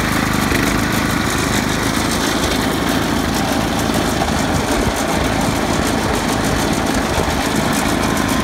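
Honda HS870 small tracked snowblower's single-cylinder petrol engine running steadily, without let-up.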